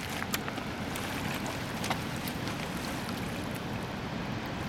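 Steady rushing noise of river water and wind, with a few sharp clicks of cobblestones knocking together underfoot in the first two seconds.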